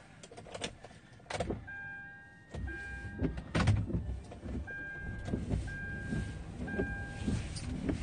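Inside a car: a few clicks, then the engine starts about two and a half seconds in and keeps running. A dashboard warning chime beeps over it, a short high tone repeating roughly once a second.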